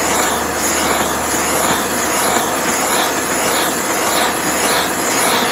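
Handheld gas torch burning with a steady hiss, its flame moved around the crankcase bearing bore to heat and expand it so the bearing will release.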